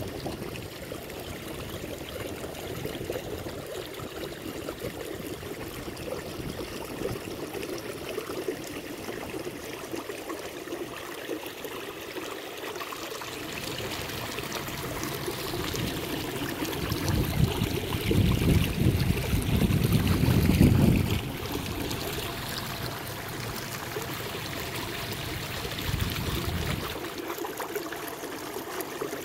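Kayak paddling on calm river water: water trickling and dripping off the paddle blade and lapping along the hull, with a louder low rumble for a few seconds past the middle.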